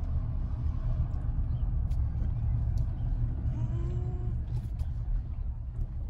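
Low, steady rumble of a car's engine and tyres heard from inside the cabin as the car rolls slowly along a street, with a few faint clicks.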